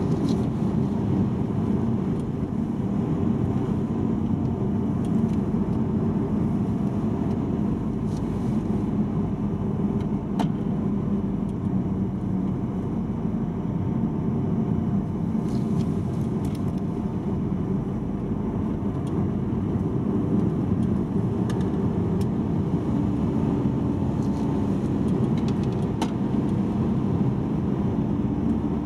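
A car driving along a winding asphalt road, its engine and tyre noise making a steady rumble, with a few faint clicks.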